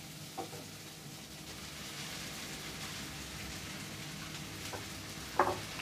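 Low, steady sizzle from a pan of egg and tomato masala on the stove, with a few faint taps.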